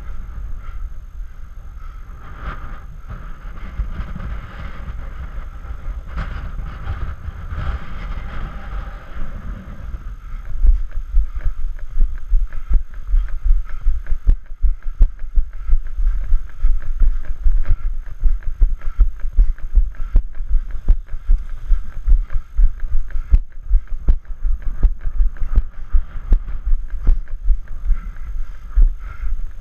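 Running footsteps on a rocky trail, heard as low thuds about three a second, over a rumble of wind and movement on the microphone. About ten seconds in the thuds become louder and more even.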